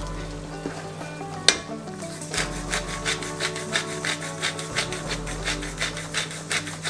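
Hand-twisted spice grinder grating over a frying pan, a rapid run of rasping strokes about four to five a second that starts about two seconds in. A single sharp click comes just before it.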